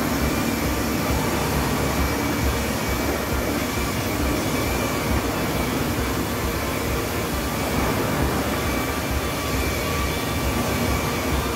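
Handheld electric car polisher running steadily with a constant whine, its buffing pad working over a car's paintwork.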